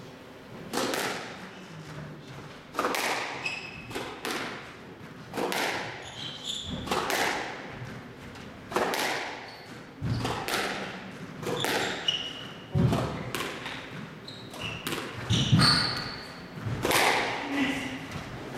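A squash rally: the ball cracking off rackets and the walls about every one to two seconds, each hit ringing in the court. Short squeaks of players' shoes on the floor come between the hits.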